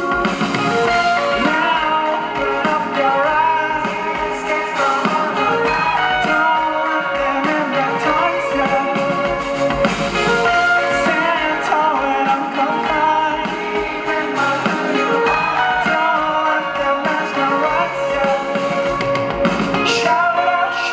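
Music: a song with a singing voice and guitar.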